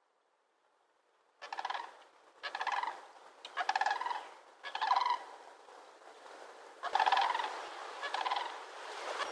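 Sandhill cranes calling as they fly overhead: a series of rolling, rattling calls about one a second, starting a second or so in, with a short lull past the middle before the calls resume.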